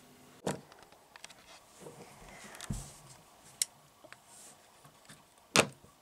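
Quiet handling noises from candling eggs with a lamp: soft rustling and a few sharp clicks, the loudest a sharp knock near the end.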